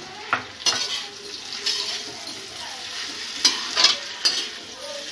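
A spoon stirring chunks of pumpkin in a hot metal kadhai, with irregular scrapes and clinks against the pan over a steady sizzle of frying.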